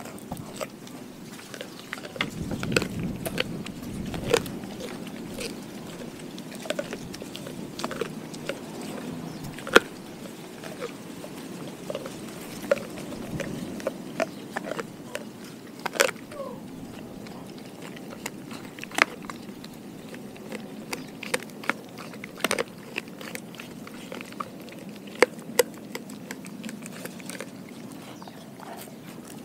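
A Doberman chewing a raw pig ear: irregular sharp crunches and snaps as her teeth work through the cartilage, with quieter gnawing between them.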